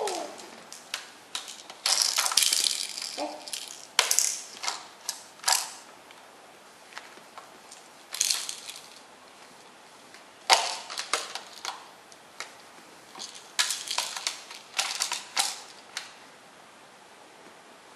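Toy blocks knocking and clattering against a plastic shape-sorter toy, in scattered clusters of sharp clicks and knocks.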